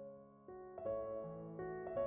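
Soft background piano music, a short lull and then new notes and chords struck about half a second in.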